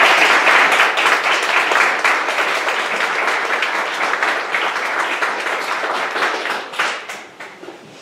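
Audience applauding, loudest at the start and gradually dying away near the end.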